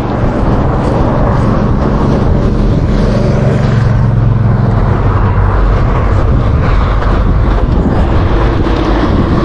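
A motor vehicle passing close by: a steady low engine hum that builds and then fades over the last few seconds, over a continuous rushing noise.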